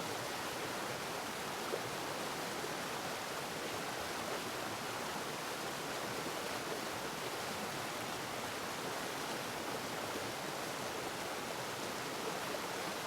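Steady, even rushing noise, like flowing water or wind, unchanging throughout.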